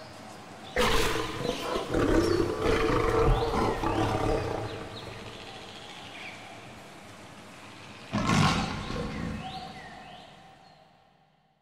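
Howler monkeys roaring in two bouts, the first starting suddenly about a second in and running several seconds, the second shorter near the end and fading out. Small birds chirp throughout.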